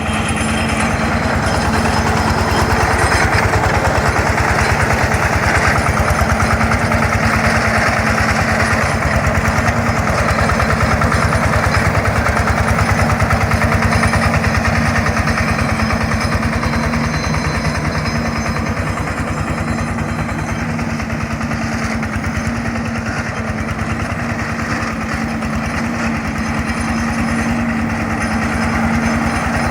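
Engine of a 4LZ-0.7 mini combine harvester running steadily at constant speed, with a steady low hum over the machine noise.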